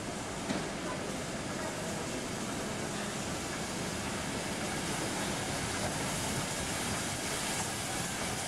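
Narrow-gauge steam locomotive No. 208 rolling slowly past with its coaches: a steady rumble and hiss of the train on the move, with one sharp clank about half a second in.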